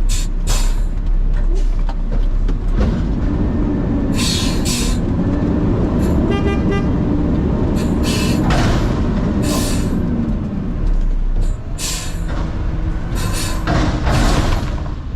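Diesel semi truck's engine running under way, its pitch drifting up and down, with several short hisses of air and a brief beeping tone about six and a half seconds in.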